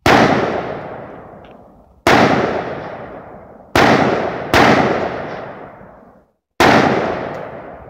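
AR-15 rifle in 5.56×45mm NATO fired five times at uneven intervals, two of the shots close together in the middle. Each sharp report trails off over a second or two.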